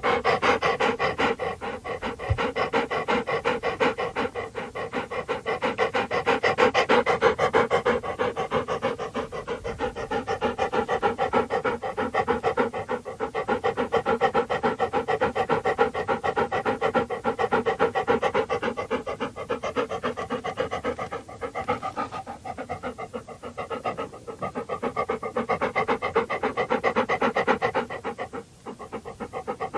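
Dog panting: fast, even, rhythmic breaths in and out, with a brief break near the end.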